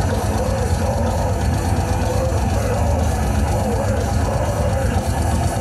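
Slam death metal band playing live: distorted guitars, bass and drums in a dense, unbroken wall of sound with a heavy low end.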